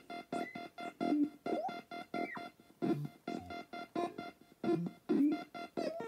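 Circuit-bent Palitoy Merlin electronic game and Sanyo answering-machine remote, patched together, putting out choppy electronic bleeps: a steady high beep held under pulses about three or four a second, with lower tones sliding up and down.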